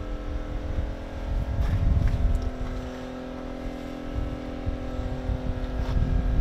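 A steady low motor hum, like an engine running nearby, under uneven low rumbling from wind on the microphone.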